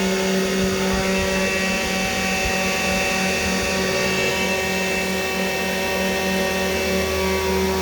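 CNC 3018 desktop router's spindle running steadily while milling brass, a whine of several steady tones with a fast pulsing in its lowest tone; a low hum joins about halfway through.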